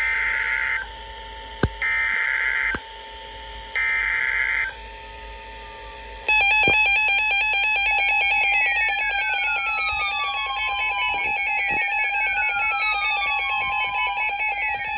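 Emergency Alert System signalling. First come three short bursts of warbling SAME header data tones, about two seconds apart, over a steady tone. Then, about six seconds in, a loud continuous alert tone starts, with repeated falling sweeps.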